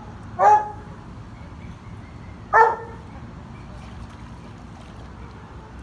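Dog barking twice, two single barks about two seconds apart. These are demand barks at a ball floating out of reach in the pool.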